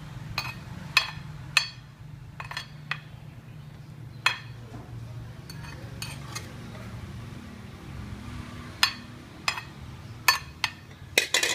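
Metal spatula clinking and scraping against the pan and serving plate as stir-fried food is dished out. The clinks come in short, scattered knocks, with a quick flurry near the end, over a steady low hum.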